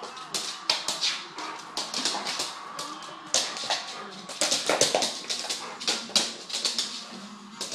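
Rottweiler's claws clicking and skittering on a hardwood floor as it runs and pounces in play, in quick irregular bursts that are busiest in the middle.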